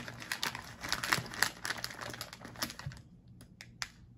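Plastic snack bag of rice crackers crinkling and crackling as it is torn open by hand, thinning to a few quieter clicks and rustles near the end.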